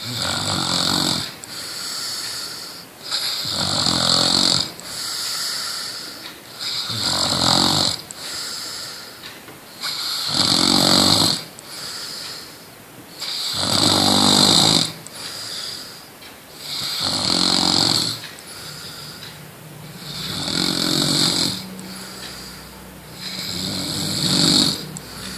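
A person snoring loudly and rhythmically: about eight rough, rattling snores, one every three seconds or so, with quieter breathing between them.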